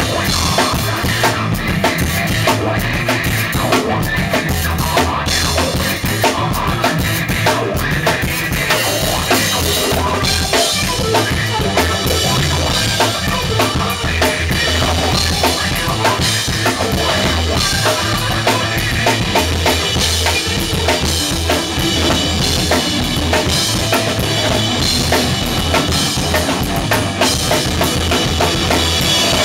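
A Tama drum kit played continuously, with bass drum, snare and cymbals, together with an electric guitar: a live rock band playing in a small room.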